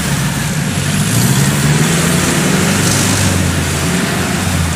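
Engine of a small tracked rice carrier hauling a full load of rice sacks across a harvested paddy, running steadily under load with its pitch rising slightly about a second in.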